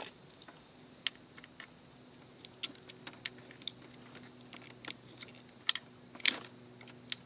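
Irregular light clicks and taps as parts of an air-conditioner unit are handled and pulled apart for scrap, with two sharper knocks about six seconds in, over a faint steady hum.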